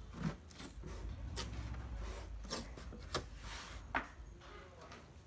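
Masking tape being rubbed and pressed down by hand onto a hard plastic drill case, with a few short clicks and taps against the plastic.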